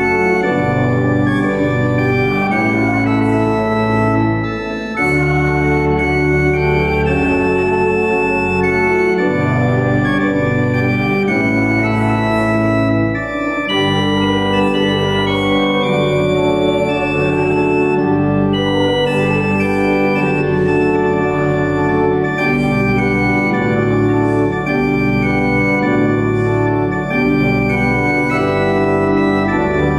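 Church pipe organ playing a slow piece of held chords that change every second or two over a bass line.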